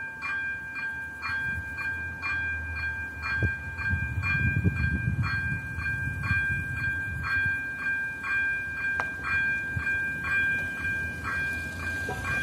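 Level-crossing warning bell ringing steadily about twice a second while the barriers are down, signalling a train is due. Under it is a low rumble that is strongest in the middle.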